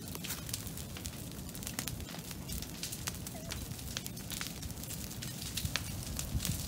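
Bonfire of green brush and a couch burning, crackling and popping sharply several times a second over a steady low rumble.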